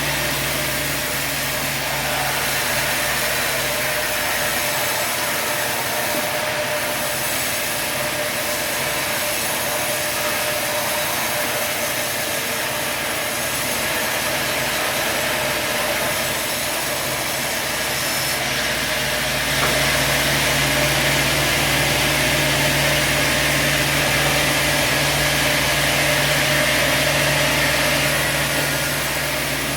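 Sawmill machinery running steadily: a constant engine hum under a hissing high end, growing a little louder about two-thirds of the way through.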